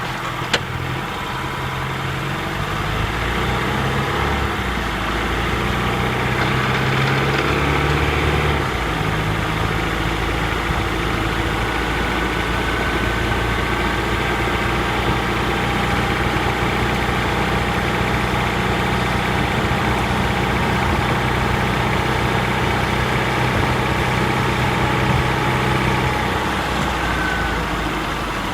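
Honda Freed Hybrid's i-DCD powertrain (1.5-litre four-cylinder engine with electric motor and dual-clutch transmission) running under way while still cold and warming up, picked up both in the cabin and in the engine bay. It makes the abnormal noise this system gives during cold warm-up, most marked with engine and motor in third gear. The low engine tones shift a few times in the first nine seconds and then hold steady.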